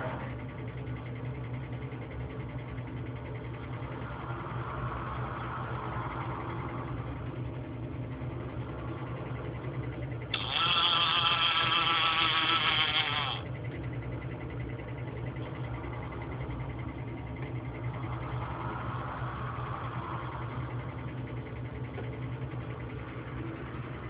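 Robot arm's electric motors running under a steady low machine hum: two soft whines rise and fade, and about ten seconds in a louder, wavering motor whine starts abruptly, lasts about three seconds and cuts off.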